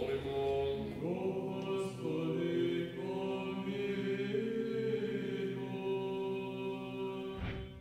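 Orthodox liturgical chant: voices singing slow, long-held notes that step to a new pitch every second or two, fading out near the end.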